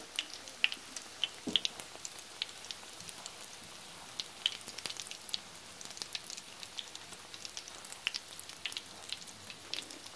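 Breaded mashed-potato croquettes shallow-frying in hot oil in a cast-iron skillet: a steady sizzle covered in many small crackling pops.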